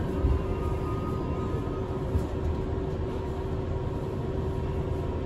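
NYC Subway R62A car's steady rumble with a low, even hum.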